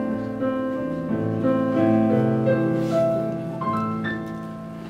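Piano playing the closing bars of a slow song alone after the last sung line, held chords slowly fading away.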